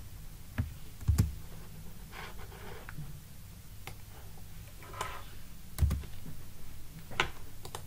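Typing on a computer keyboard: scattered keystrokes and clicks with short pauses between them, a few landing with a dull thump.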